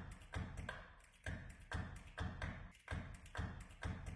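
Rhythmic percussive tapping: a string of sharp hits with a short ringing tail, coming about two to three a second.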